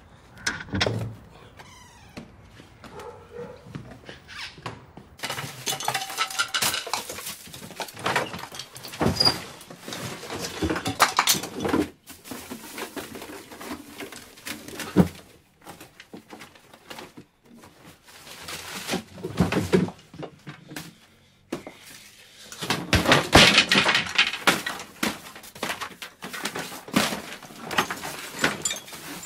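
A door handle being worked and forced, then rummaging through a wooden drawer and shelves: repeated knocks, thuds, clicks and the clatter of objects being shoved about, in bursts with short pauses between.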